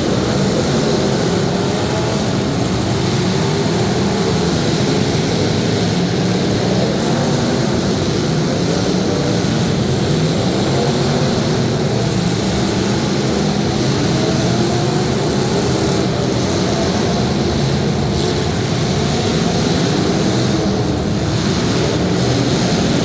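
Several demolition derby cars' engines running hard together, a loud dense drone whose pitches keep rising and falling as they rev.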